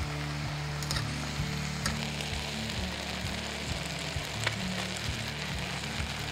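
Onion, shimeji mushrooms, asparagus and bacon sizzling in olive oil in a camping pot, with a few clicks as metal tongs touch the pot. Background music plays over the cooking.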